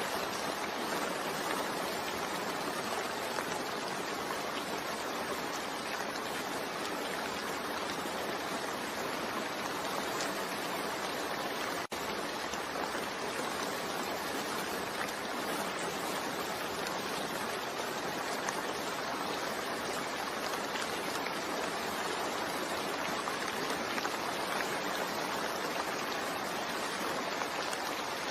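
Steady recorded rain, an even continuous hiss of falling rain, with a momentary dropout about twelve seconds in.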